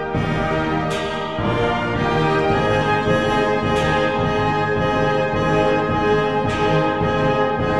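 Instrumental background music with sustained brass chords that change every second or so.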